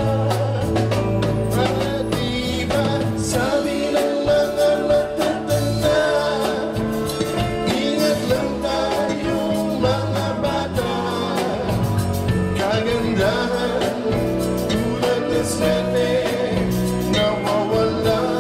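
Live band playing a Filipino pop song, with a sung melody over the band.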